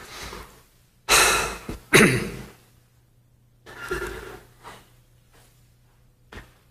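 A man's heavy breaths and sighs close to the microphone: two loud, rushing breaths about one and two seconds in, then a softer sigh at about four seconds and a small click near the end. He is choked with emotion.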